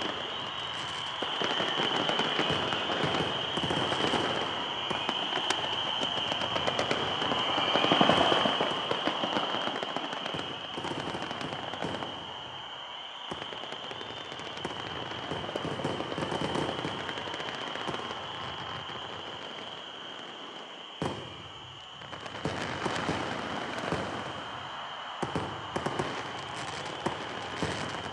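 Fireworks display: dense, rapid crackling and popping of many shells and rockets going off together, loudest about eight seconds in, easing off around twenty seconds and picking up again a couple of seconds later. A steady high whine runs underneath throughout.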